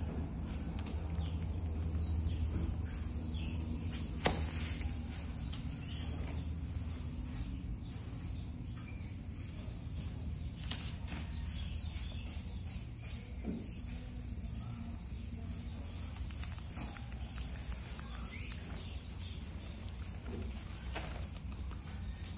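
Cricket trilling steadily at a high pitch, stopping briefly twice, over a low steady hum, with one sharp click about four seconds in.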